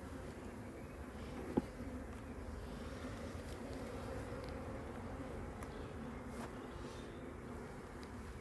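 Honeybees buzzing around an open hive, a steady hum, with one sharp click about a second and a half in.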